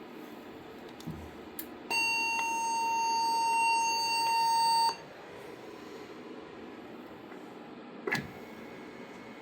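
A steady electronic alarm tone from a Cerberus Pyrotronics MXL-V fire alarm system, held for about three seconds and cut off abruptly, with a few light clicks before it and one sharp click near the end.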